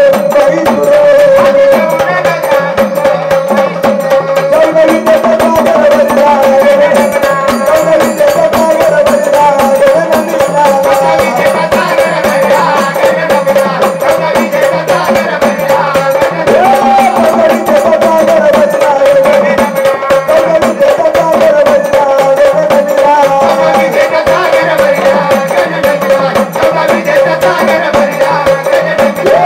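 Marathi gondhal-style devotional folk music, an instrumental stretch: a steady held drone under a wavering melody line, driven by dense, fast hand percussion with a shaken jingling rattle.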